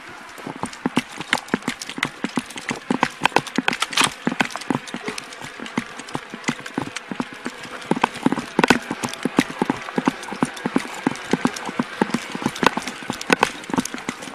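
Running footsteps on pavement, about three or four footfalls a second, heard through a body-worn camera that knocks and jostles with each stride. They start about half a second in.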